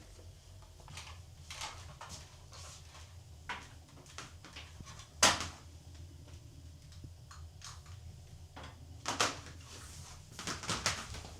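Small knocks and clicks of household objects being handled, with one sharp, louder knock about five seconds in and a quick run of clicks near the end.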